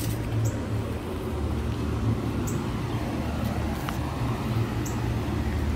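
A steady low mechanical rumble, like an engine or traffic, with a few faint ticks over it.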